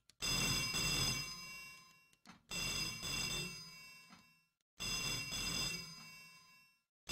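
Telephone bell ringing: three rings about two seconds apart, each starting sharply and fading away.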